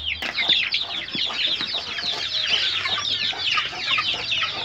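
A flock of chickens calling over one another: a dense, unbroken run of short, high, falling peeps.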